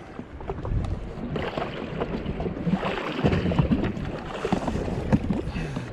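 Water lapping and slapping against the hull of a drifting jet ski, in an irregular run of small splashes and knocks, with wind on the microphone.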